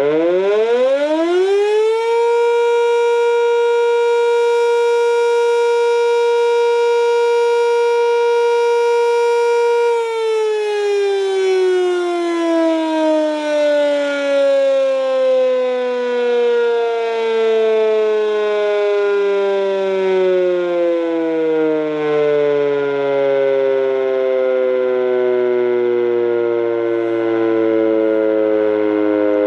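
Civil defense siren winding up over about two seconds, holding one steady loud tone until about ten seconds in, then slowly winding down, its pitch sinking for the rest of the time.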